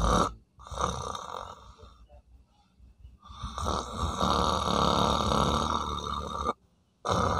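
A man snoring heavily. A loud snore breaks off at the very start, a shorter one follows about half a second in, and a long, noisy snore runs from about three seconds in and cuts off suddenly near the end.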